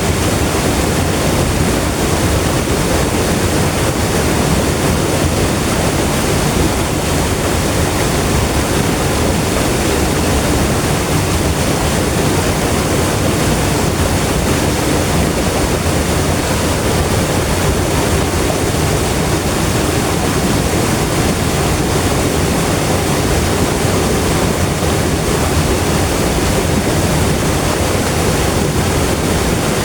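River water flowing: a steady, even rush with no breaks or changes.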